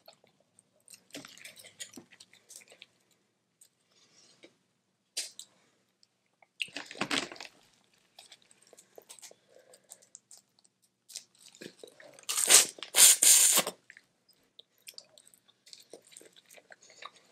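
Boiled crawfish being eaten close to the microphone: shells crunching as they are broken and peeled, and chewing, in scattered short bursts. The loudest stretch comes about twelve seconds in and lasts over a second.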